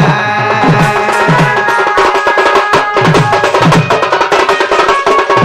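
Sambalpuri folk dance music without singing: a double-headed dhol beaten by hand in a quick, driving rhythm, under a steadily held melody line.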